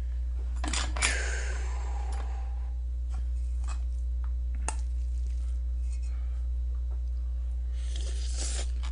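Metal utensils clink against a stainless steel bowl twice, about a second in, with a ringing tail, then a lighter click midway. Near the end comes a noisy slurp as a mouthful is taken. A steady low hum runs underneath.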